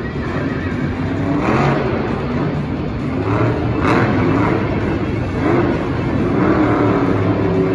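A vehicle engine revving, its pitch rising and falling over a steady rumble.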